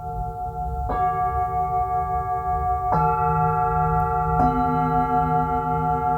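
Meditation singing bowls ringing with long, wavering tones, with a new bowl struck about a second in, again about three seconds in and once more near four and a half seconds, each adding another pitch to the layered ringing.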